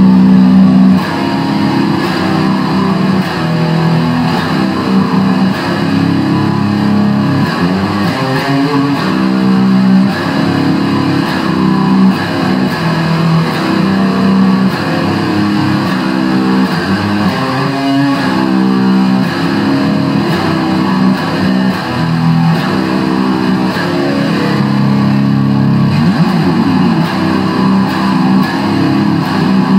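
Epiphone SG Special electric guitar played loud through a Line 6 Spider III amp, improvising heavy-metal riffs and held notes with a few string bends.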